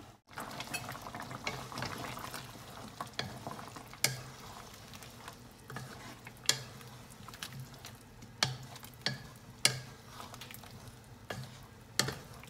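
A wooden spoon stirring a thick curry of chicken, potatoes and carrots in a metal pot, knocking sharply against the pot's side every second or two, over the faint sizzle of the simmering sauce.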